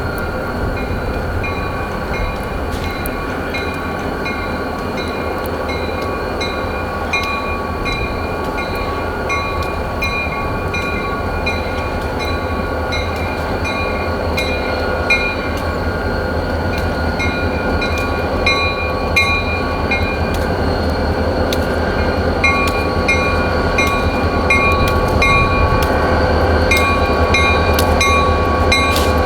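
Freight train running by, a steady low rumble slowly growing louder, with a high ring that pulses about one and a half times a second over it.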